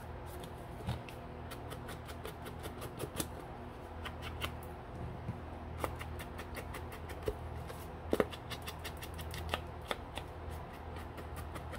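An ink blending tool dabbed on an ink pad and worked along a paper card's edges: a run of light, irregular taps and scuffs, a few sharper than the rest.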